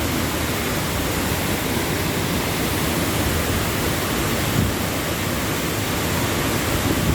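Wahkeena Falls' water falling, a steady rushing noise.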